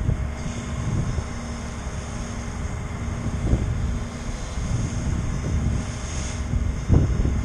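Wind gusting on the microphone, a low rumble that swells and fades, strongest near the end, over a faint steady drone.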